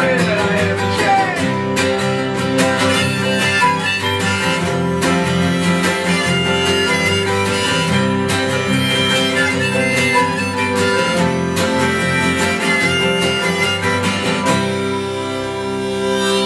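Two acoustic guitars strumming through an instrumental passage with bass and a high held melody line on top. A little before the end the strumming stops and a final chord rings out.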